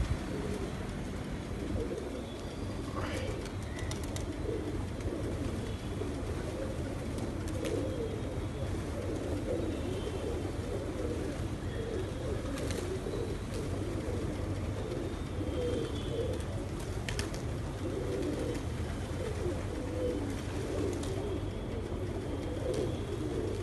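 A large flock of feral pigeons cooing together in a steady, overlapping chorus, with a few sharp clicks and wing flaps. It runs over a low, steady rumble.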